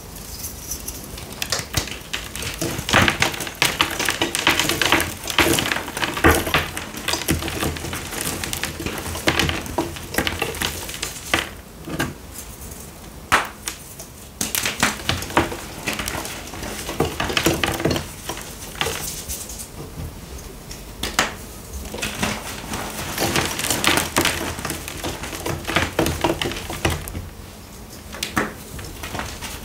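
Hands squeezing and crumbling reformed gym chalk, blue-dyed blocks and white snowflake-shaped pieces, in a dense run of dry crunches and crackles with a few short pauses.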